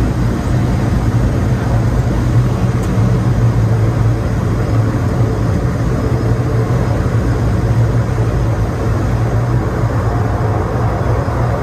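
Cabin noise of a de Havilland Canada DHC-6 Twin Otter rolling on the runway, its twin PT6A turboprops and propellers giving a steady low hum under a loud wash of noise.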